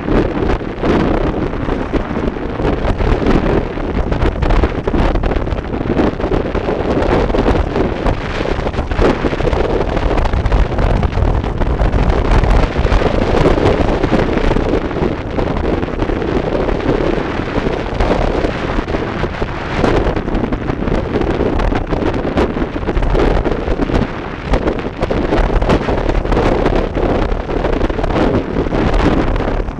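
Wind rushing over the microphone of a camera riding on a bicycle descending fast: a loud, steady rush that flickers with small gusts throughout.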